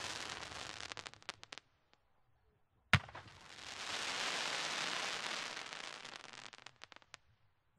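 Aerial firework shells with crackling effects: a dense crackle fading into a few separate pops, then a single sharp bang about three seconds in, followed by crackling that swells up and dies away into scattered pops.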